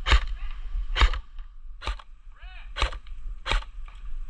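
Airsoft gun firing five single shots, about a second apart, each a sharp crack.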